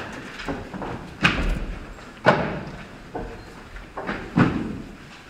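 A series of sharp thuds, roughly one a second and irregular, each ringing on in a large echoing hall.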